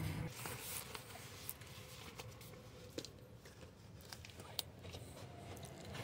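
Faint rustling and a few sharp clicks from things being handled in a car's trunk.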